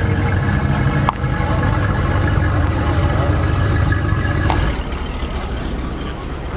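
Deep, steady exhaust rumble of a car engine as a car rolls past at low speed, dropping off nearly five seconds in. A single sharp click about a second in.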